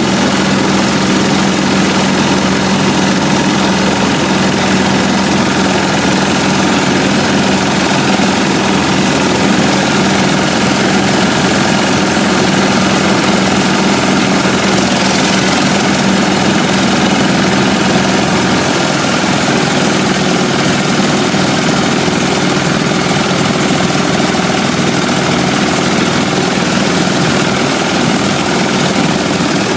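An engine running steadily and loud with a constant hum. The hum shifts slightly about two-thirds of the way through.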